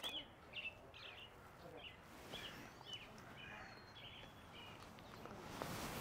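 Dark-eyed juncos giving faint, short, high chip calls, about two a second. A soft rush of noise rises near the end.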